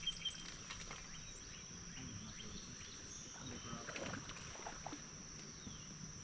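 Crickets or similar insects giving a steady high-pitched drone, with a few faint scattered clicks.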